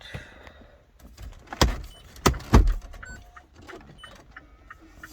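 Plastic dashboard parts of a 2007 Mazda 6 being pushed and clicked back into place as the radio is refitted: a series of sharp clicks and knocks, the three loudest close together about halfway through.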